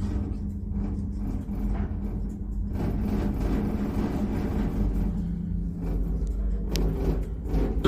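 Lift in motion: a steady low rumble with a held hum, with more rattling noise from about three seconds in and a sharp click near the end.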